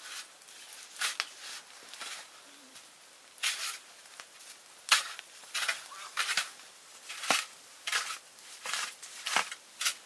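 Folding shovel digging into packed snow: a series of short scraping strokes, about one a second at first and coming faster in the second half.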